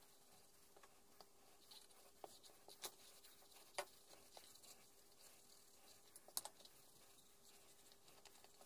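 Faint handling sounds of a leather axe sheath being turned and folded in the hands: scattered light clicks and taps, with two sharper clicks about four and six and a half seconds in.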